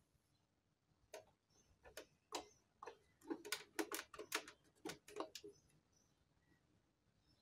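Sharp plastic clicks and knocks from the hand wheel of a Singer Heavy Duty sewing machine as it is gripped and pulled off its shaft, about a dozen faint clicks bunched between one and five and a half seconds in.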